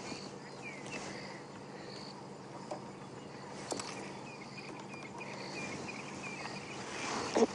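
Insects chirping in short, evenly spaced pulses over a low steady hum, with a second, lower chirping joining about six seconds in.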